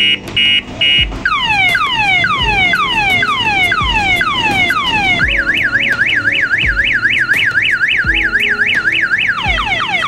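Electronic mini motorcycle siren (1122 type) cycling through its tones: short rapid beeps for about the first second, then repeated falling wails, about two or three a second. About five seconds in it switches to a fast up-and-down warble, about four a second, and near the end it goes back to falling wails.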